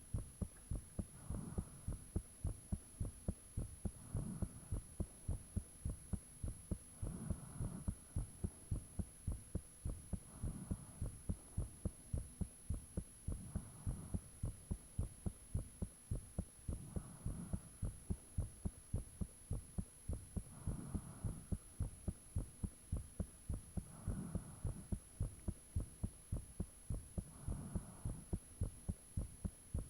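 A human heartbeat picked up close, with steady, evenly spaced low thumps throughout. A soft rushing sound swells and fades about every three seconds, over a faint steady high-pitched whine.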